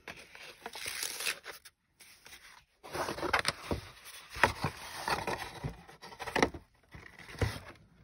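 Kraft paper envelope rustling and sliding as it is opened by hand and a cloth-wrapped notebook is drawn out of it. It comes in two spells of handling, a short one at the start and a longer one after a brief pause, with light taps and clicks.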